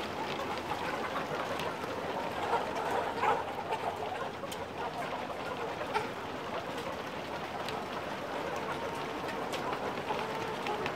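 Chickens clucking, a steady murmur of flock noise, louder for a moment about three seconds in, with a few faint clicks.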